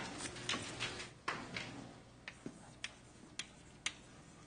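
Scattered light clicks and taps, about ten of them at irregular intervals.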